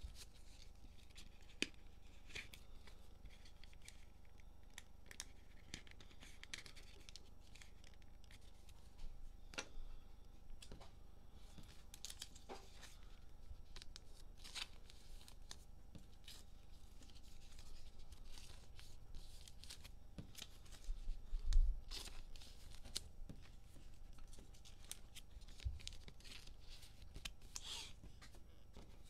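Hands tearing open a cellophane-wrapped pack of trading cards and handling cards and plastic sleeves: crinkling, tearing and many small clicks. A single louder thump comes about two-thirds of the way through.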